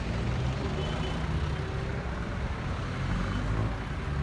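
City street traffic noise: a motor vehicle engine running with a steady low hum, over the general road noise of passing traffic.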